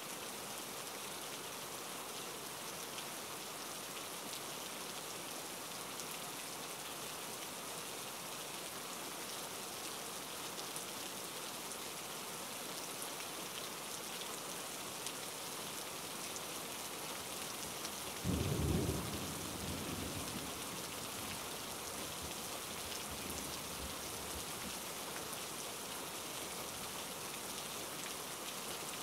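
Steady hiss of rain, with a brief low rumble about two-thirds of the way through.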